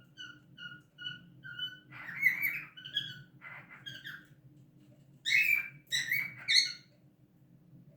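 Cockatiels chirping: a quick run of short, even chirps, then louder, harsher calls, the loudest three coming close together in the second half.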